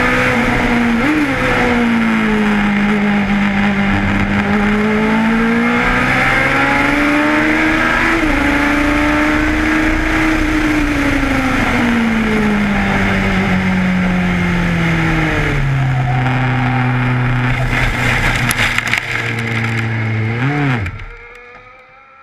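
Onboard sound of a Lotus 91's Cosworth DFV V8 at racing speed, its note rising and falling through gear changes and corners, with a quick throttle blip on a downshift about a second in. Near the end there is a rattle as the car runs into gravel, then a last blip, and the engine cuts out abruptly.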